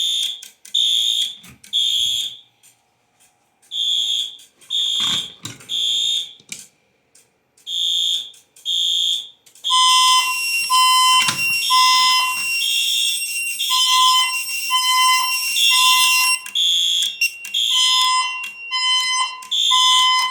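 Fire alarm horns sounding in the temporal-three pattern: three loud high-pitched beeps, a pause, then again. About halfway through, a second, lower tone joins in the same three-beat rhythm.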